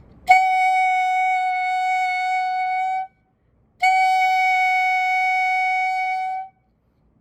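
Clarinet mouthpiece and barrel with reed and ligature, blown on its own: two long steady tones of nearly three seconds each, with a short pause for breath between them.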